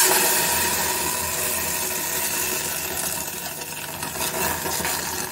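Electric kitchen mixer grinder motor running with a steady whirring hiss, starting abruptly and easing a little.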